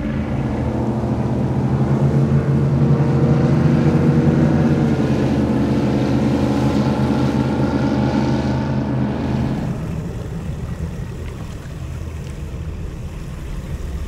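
Speedboat engine running hard at speed, a steady deep drone that is loudest in the first half and then drops away suddenly about ten seconds in.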